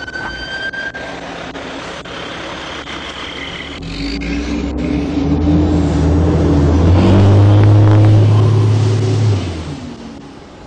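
A siren's wail glides and fades out in the first second. Then a fire engine's heavy engine rumbles louder and louder as it drives up alongside, its note stepping up about seven seconds in, and drops away suddenly about two seconds later.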